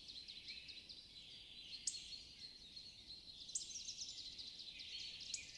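Faint birds chirping: a steady scatter of short high calls, with a few sharper chirps about two, three and a half and five and a half seconds in.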